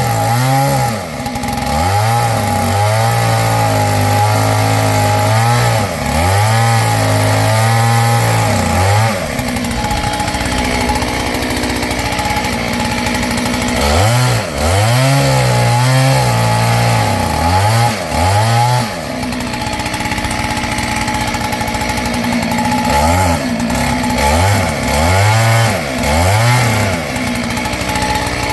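Kit-built clone two-stroke chainsaw running and being revved repeatedly. The engine climbs to high revs, holds for a second or few, then drops back, several times over, with steadier lower-revving stretches between. Near the end come three short revs in a row.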